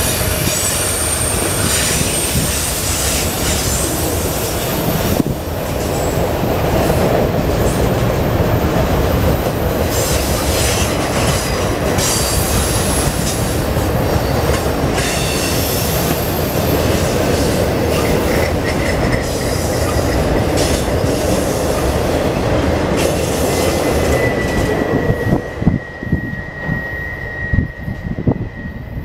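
Freight train of autorack cars rolling past: a steady rumble with high wheel squeal and some clickety-clack from the wheels. Near the end the last car passes and the noise drops away, leaving one thin, steady squeal as the train draws off.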